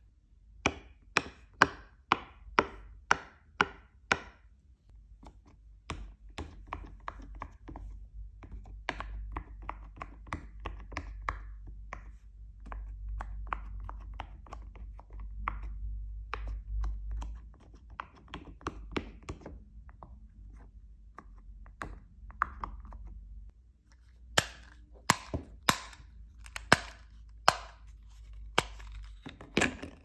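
Silicone pop-it fidget toy bubbles being pressed through one by one, each giving a sharp pop: loud and about two a second at first, then a long run of softer, quicker pops, and loud pops again near the end.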